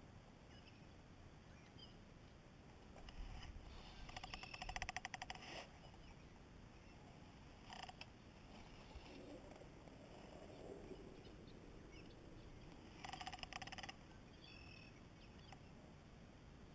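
Fly reel clicking in quick rattling runs as line is worked off or onto it: a longer run about three seconds in, a brief one near the middle, and another past the three-quarter mark, with near silence between.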